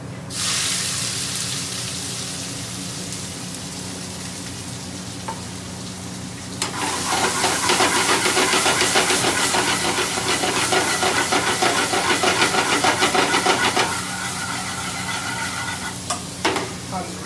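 Sliced onion and peppers hitting smoking-hot vegetable ghee in a frying pan and sizzling at once. From about 7 s to 14 s the sizzle is louder, with a quick rhythmic scraping of the chef's spoon, as the pan flares and the vegetables are stirred over the gas flame. Then it settles back to a steady sizzle, with a single knock of the spoon near the end.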